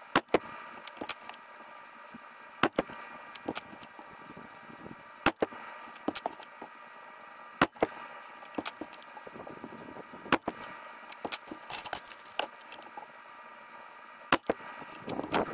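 Thomas HP PCP air rifle firing slugs, six sharp shots a few seconds apart, some followed a split second later by a fainter knock, with smaller clicks between shots.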